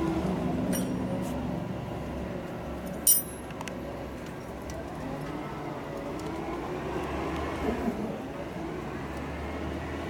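Small metal parts and tools handled at a motorcycle's ignition points plate: a few light clicks, then one sharp metallic clink about three seconds in, over a steady low hum.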